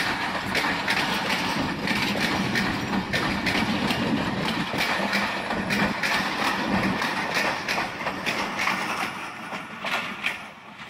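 Passenger train coaches rolling past close by, the wheels clicking rapidly and irregularly over the rail, with a steady low hum underneath. The sound falls away over the last few seconds as the end of the train moves off.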